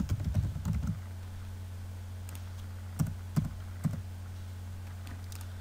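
Computer keyboard typing: a quick run of keystrokes for about the first second, then three separate keystrokes a few seconds in, over a steady low hum.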